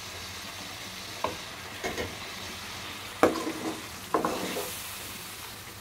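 Tomato masala sizzling gently on low heat in a metal wok as boiled taro pieces are tipped in. A metal ladle knocks against the pan four times, the loudest a little past halfway.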